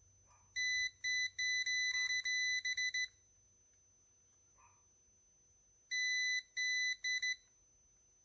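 Multimeter continuity beeper sounding a single high steady tone, in short irregular beeps of uneven length: a run of several, then a pause, then a shorter run, as the probes make and break contact across the repaired traces.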